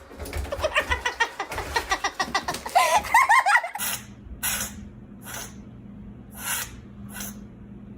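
People laughing for the first few seconds, then after an abrupt cut a run of five short hissing bursts, a little under one a second.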